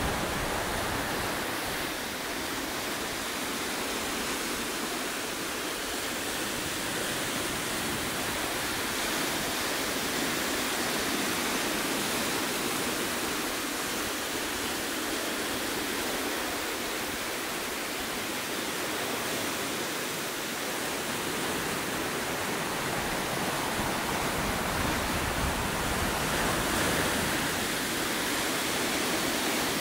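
Ocean surf breaking and washing over rocky ledges: a continuous rushing wash that swells a little near the end.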